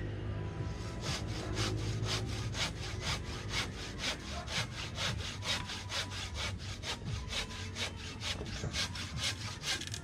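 Hand saw cutting wood with an even run of back-and-forth strokes, about two to three a second, beginning about a second in.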